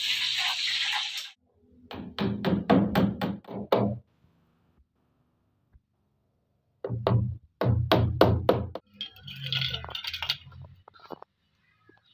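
Claw hammer striking a wooden plank, nailing it: two quick runs of about seven or eight blows each, roughly four a second, then a few lighter, scattered knocks.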